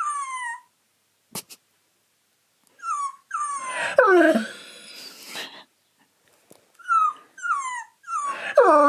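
Short, high-pitched recorded little-dog yips from a phone dog-translator app, each answered by a husky copying them with a long whine that slides down in pitch. The exchange comes twice: yips about 3 s in followed by the louder whine, then two more yips and a second falling whine near the end. A single tap on the phone is heard just before the first yips.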